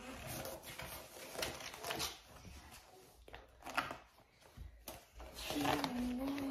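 Paper rustling and flapping as the pages of a large picture book are turned by hand. About two-thirds of the way through, a steady low hum sets in and becomes the loudest sound.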